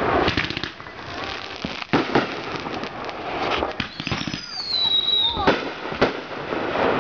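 Fireworks going off: repeated bangs with crackling between them, and a high whistle sliding down in pitch a little after four seconds in.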